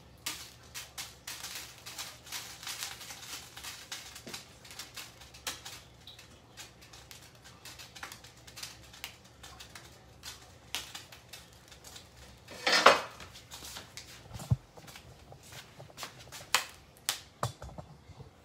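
Kitchenware being handled: many light clicks and clinks of dishes and utensils, with one louder clattering scrape about thirteen seconds in and a dull knock just after.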